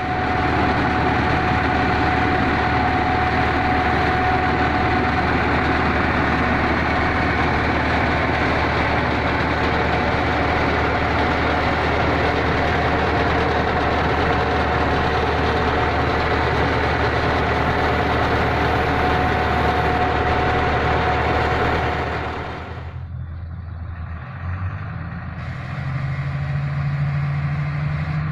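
Heavy diesel road-works machinery running steadily with a thin, steady whine over the engine. About 23 seconds in it drops away, and a lower engine hum comes up near the end.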